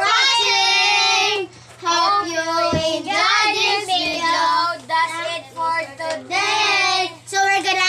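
Children singing together, loud chanted phrases with short breaks between them.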